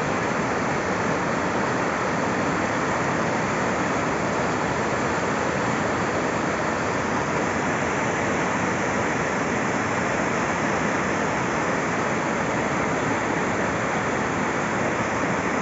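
A swollen river in flood, its water rushing in a steady, unbroken noise.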